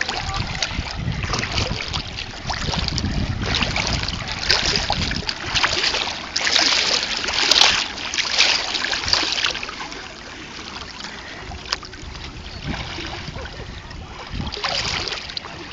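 Water splashing and lapping close to the microphone, with wind buffeting the microphone for the first few seconds. The splashing is loudest in the middle, then settles to a softer wash.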